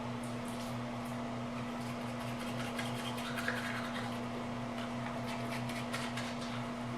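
A small motor or appliance humming steadily at one constant pitch, with scattered light clicks and clinks over it.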